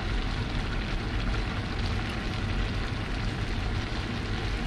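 Bopis simmering and sizzling in a wide pan over a stove burner: a steady, even hiss over a low hum, with no stirring strokes.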